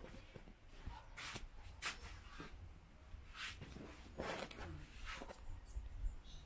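Faint irregular scuffs and rustles, about half a dozen, over a steady low rumble: footsteps and handling noise from a handheld camera being carried across a tiled yard.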